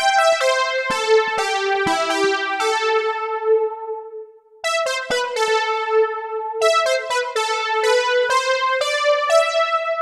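Cherry Audio Chroma software synthesizer, an emulation of the Rhodes Chroma, playing a synth-brass preset: a melodic phrase of bright notes with sharp attacks that each fade. There is a short break about four seconds in before a second phrase.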